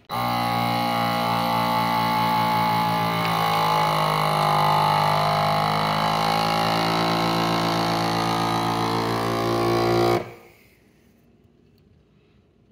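FoodSaver vacuum sealer's pump motor running steadily as it draws the air out of a sealer bag, then cutting off suddenly about ten seconds in.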